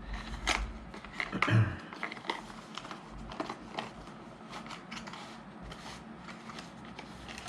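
Hands opening a small product box and its packaging: rustling with a scatter of small clicks and taps, the loudest about one and a half seconds in.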